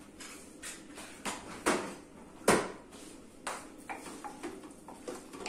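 Wooden spoon knocking and scraping against a slow cooker's pot as chicken and onions are stirred: a string of sharp clacks, the loudest about halfway through.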